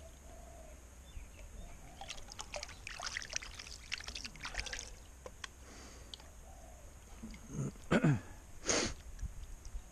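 Water pouring and trickling with a patter of small splashes and gravel clicks as the sluice is washed out, then two short loud squeaks that fall sharply in pitch near the end.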